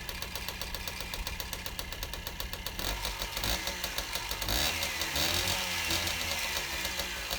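Piaggio moped's small single-cylinder two-stroke engine running and being revved up, climbing to a peak about midway and settling back down. It picks up cleanly with no stumble on acceleration, a faulty spark plug having been swapped out.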